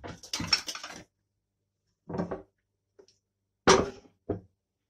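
Kitchen utensils and glass mixing bowls being handled on a wooden board: a quick run of clicks and clatter in the first second, then a few separate knocks, the loudest about three-quarters of the way through.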